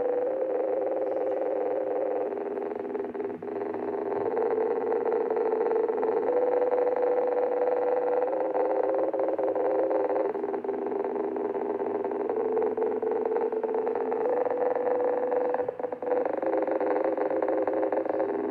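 Black MIDI: a dense mass of synthesized MIDI notes played at once, forming a buzzing, sustained chord cluster that shifts to new pitches roughly every two seconds.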